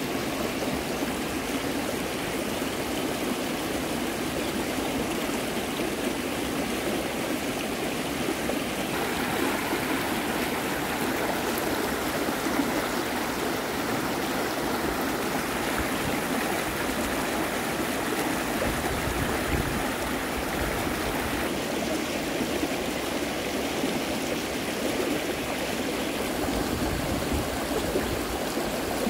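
Shallow creek rapids: water rushing and burbling steadily over rocks, its tone shifting slightly twice.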